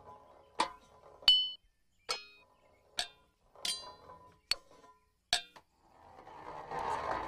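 A golf ball bouncing and rolling along fallen metal scaffolding pipes: seven sharp metallic clinks, each with a short ring, about one every 0.7 to 0.9 seconds, the second the loudest. Near the end a rising rush of noise builds up.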